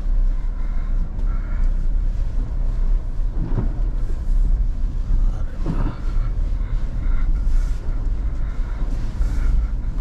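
Cabin noise of a Maruti Suzuki Jimny crawling in low-range four-wheel drive over a wet, stony river bed: a steady low drone from the engine and tyres.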